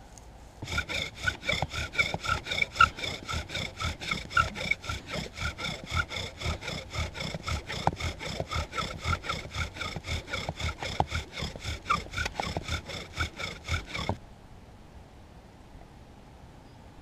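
Bow drill spinning a wooden spindle in a wooden base plate, sawn back and forth on its cord at a fast, even rhythm of about four strokes a second with a squeak on each stroke. It starts about a second in and stops suddenly near the end; the hearth is smoking as the friction builds an ember.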